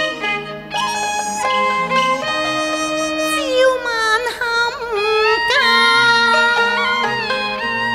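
Cantonese opera music from a live Chinese instrumental ensemble playing a melodic passage. Held notes move stepwise at first, then the melody slides and wavers in pitch from about the middle on.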